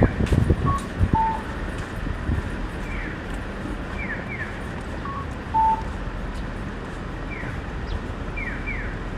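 Japanese audible pedestrian crossing signal sounding: short falling electronic chirps, often in pairs, repeating over and over, with a two-note cuckoo-like call dropping in pitch about every four and a half seconds. Steady street noise runs underneath, with a louder low rumble right at the start.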